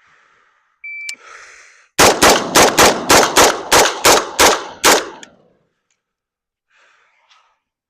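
Shot timer beeps once, then a rifle fires a rapid string of about ten shots in roughly three seconds, the first shot a little over a second after the beep.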